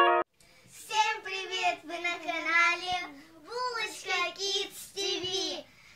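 A young girl's high, sing-song voice, in phrases with short pauses. A musical intro cuts off suddenly just after the start.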